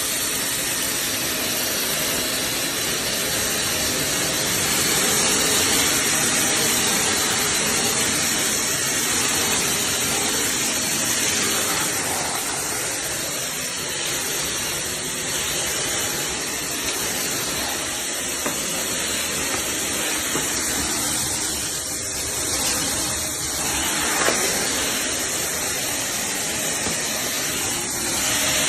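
Corded stick vacuum cleaner running steadily, with an even rushing hiss of motor and airflow.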